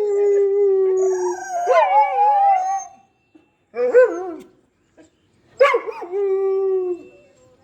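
Pet dog howling: a long, held howl that breaks into a wavering, rising-and-falling yodel, a short howl about four seconds in, and another long howl near the end.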